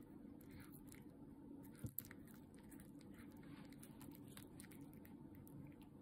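Faint crackling and clicking of a cat's teeth gnawing and chewing a hard dried tuna stick, with one sharper click about two seconds in.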